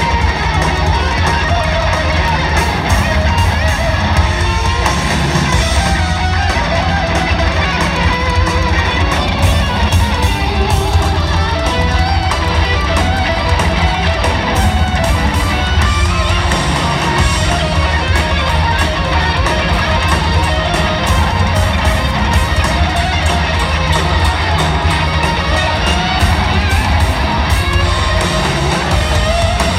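Live rock band playing loud, dense music led by strummed electric guitars, with a heavy low end and no singing.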